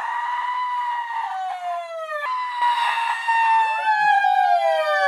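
Women wailing loudly in long, drawn-out cries that slide slowly down in pitch, with a second wailing voice overlapping the first in the second half.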